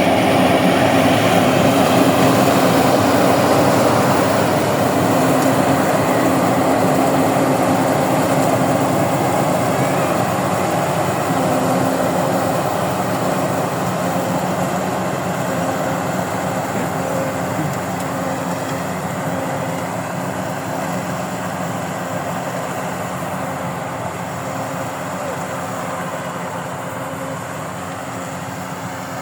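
Rice harvesting machine's engine running steadily, growing gradually quieter.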